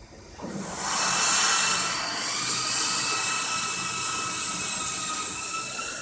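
Hydraulic system of a stone-cutting machine's pop-up roller worktable running: a steady hissing whine with several high, even tones. It starts about half a second in and drops away near the end.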